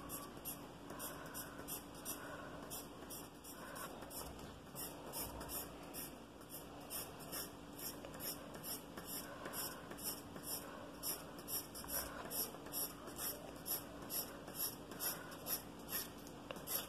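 Pencil scratching on paper in quick, evenly repeated hatching strokes, about two to three a second, growing louder in the second half.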